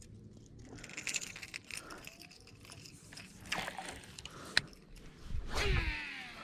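Water splashing at the surface, loudest about five and a half seconds in, among scattered small clicks and rattles.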